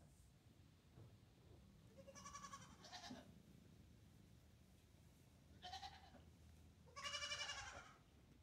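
Newborn Nigerian Dwarf goat kid bleating four times in a high, quavering voice: two short bleats about two and three seconds in, a short one near six seconds, and a longer, louder one about seven seconds in.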